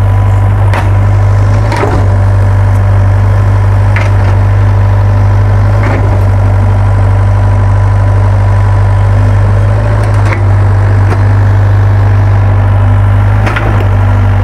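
Doosan mini excavator's diesel engine running steadily while it digs, with a few sharp knocks scattered through.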